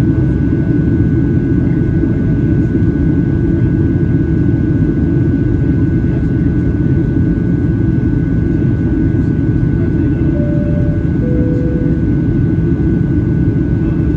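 Steady cabin noise inside a Boeing 737-800 in flight: the rumble of its CFM56 jet engines and rushing air, with a faint steady whine above it. About ten seconds in, a two-note falling chime sounds: the cabin chime that comes before a flight attendant's announcement.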